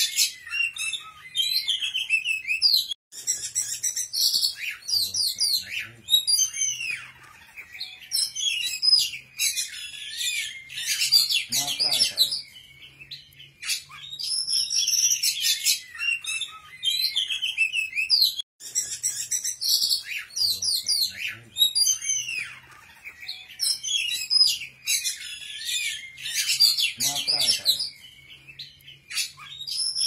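Songbird song: a rapid, varied run of chirps, trills and whistles, the same passage repeating as a loop about every fifteen seconds.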